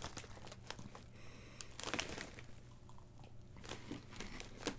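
Faint crinkle of a plastic snack bag, then crunching and chewing of Taffel Fire Balls cheese puff balls, heard as scattered short crackles.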